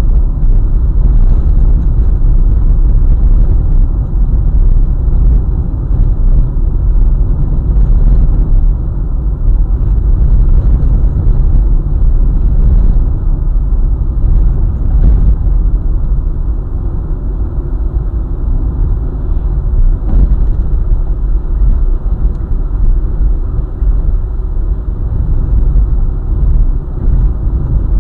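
Steady low road rumble of a vehicle driving along a highway: tyre and road noise, with a few faint ticks.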